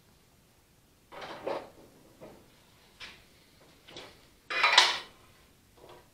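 Allis Chalmers WD45's sheet-metal radiator shell, with the radiator inside it, knocking and scraping against the tractor frame as it is set into place: a handful of short clunks and scrapes, the longest and loudest a little before the end.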